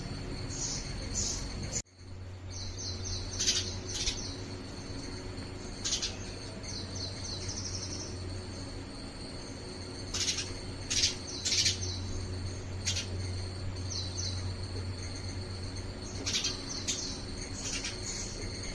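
House sparrow chirping in short repeated notes and quick series of chirps, some louder than others, over a steady faint high-pitched whine and a low hum. The sound cuts out abruptly for a moment about two seconds in.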